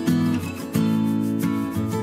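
Background music: strummed acoustic guitar chords with a steady rhythm.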